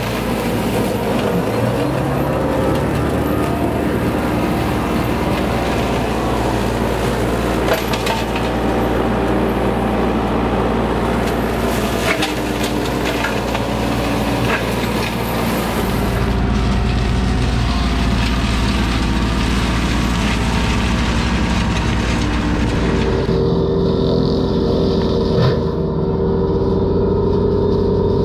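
Hydraulic flail mower on a mini excavator running under load, its rotor shredding grass and brush over the diesel engine, with a continuous dense mechanical noise and a few sharp cracks of woody stems being hit. Late on the hiss drops away, leaving a steadier hum.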